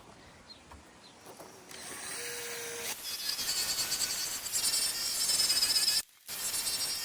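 Electric drill spinning a polishing pad against a plastic headlight lens, starting up about two seconds in and running with a steady high whine and a rough rubbing buzz. It cuts out abruptly for a moment about six seconds in, then runs again.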